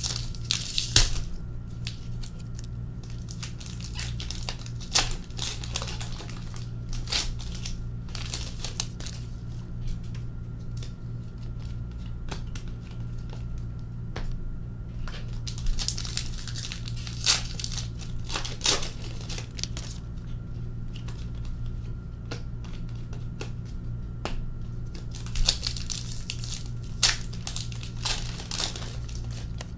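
Hockey card pack wrappers crinkling and tearing as packs are ripped open, in several bursts a few seconds apart, with sharp clicks of cards being handled and laid down. A steady low hum runs underneath.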